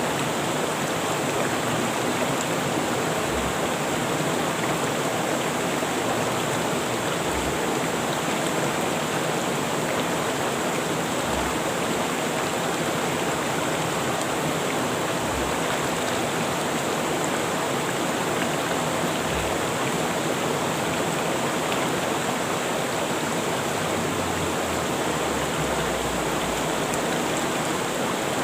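Rushing river water flowing steadily.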